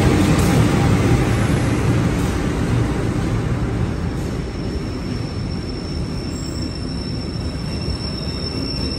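KAI diesel-hauled passenger train rolling past a station platform: a loud, dense rumble of locomotive and carriages that gradually eases off as the cars go by. A thin steady high whine joins about four seconds in.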